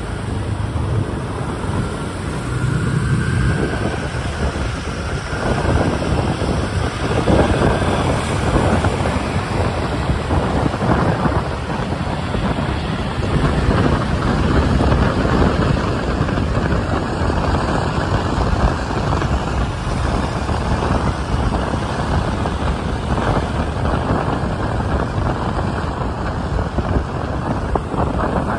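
Wind buffeting the microphone of a moving motorbike, over the steady running of motorbikes and cars in city traffic.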